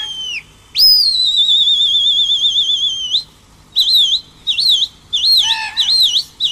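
Loud whistling by a pigeon flyer signalling his circling flock. The first long, wavering whistle ends with a falling slide just after the start, and a second one runs to about three seconds in. After a short pause comes a quick run of short rising-and-falling whistle calls.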